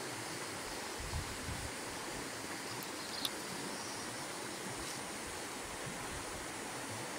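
Steady rushing of flowing river water, with a couple of soft low thumps about a second in and a single sharp click a little after three seconds.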